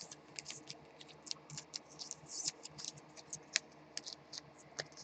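Light, irregular clicks and scrapes, a few per second, of baseball cards in plastic sleeves being handled and shuffled.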